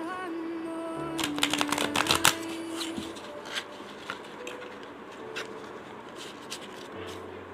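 A tarot deck being shuffled by hand: a quick run of card flicks and clicks about a second in, then scattered single card taps as the cards are slid and squared.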